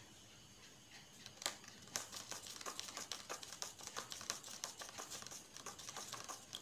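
A metal spoon clinking and ticking against a drinking glass while stirring sugar into water to dissolve it: a quick, irregular run of light clicks that starts about a second in and goes on until near the end.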